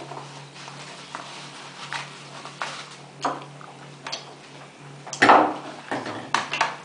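Blood pressure cuff and its case being handled and put away: scattered light clicks and rustles, with a louder rustle about five seconds in, over a faint steady low hum.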